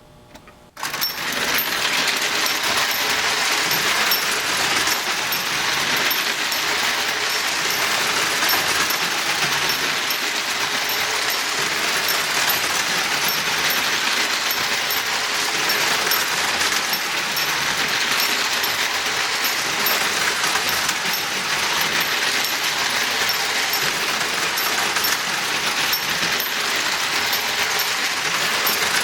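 Clockwork spring motor of a Marx Commodore Vanderbilt wind-up toy locomotive running steadily, its gears whirring, with a small bell inside struck over and over by a cam on one of the gears.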